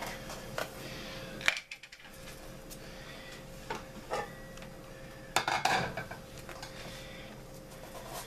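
Knocks and clatters of kitchenware being handled as a rice cooker's glass lid is lifted off and set aside, with a plastic rice container knocking about. There is one sharp knock early on and a cluster of clatters a little past halfway.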